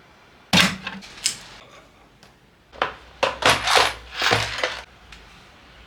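Hard plastic parts being handled: sharp clacks and rattles in two groups, a couple of loud clacks about half a second in and a longer run of knocks and clatter from about three to five seconds in.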